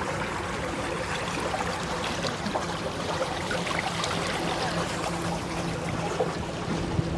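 River water trickling and splashing, with a steady low hum running underneath.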